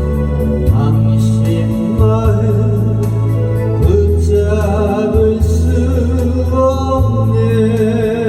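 A Korean trot song: a singer holding long notes with vibrato over a backing track with a steady bass line.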